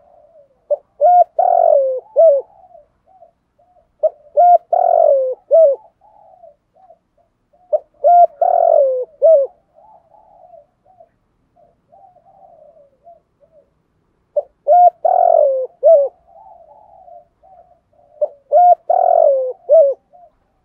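Male spotted dove cooing: five loud phrases of a few coos each, with softer coos between them and a longer soft stretch midway.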